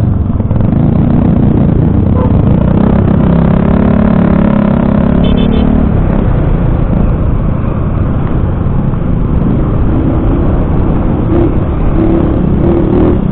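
Riding noise heard from a motorcycle: a steady loud rush of wind on the microphone with the bike's engine droning underneath.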